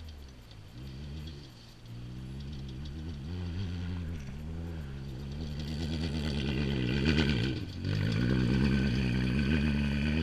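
Off-road race vehicle's engine approaching at speed, its revs rising and falling over the rough dirt track and growing louder. The sound drops briefly a couple of seconds before the end, then comes back loud and steady.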